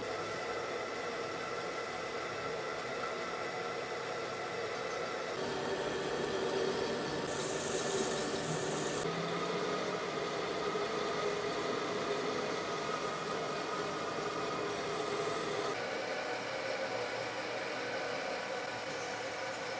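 Metalworking in a workshop: a machine running steadily, with squeaking and scraping of metal on metal. Two short bursts of high hiss come midway, and a run of sharp taps near the end.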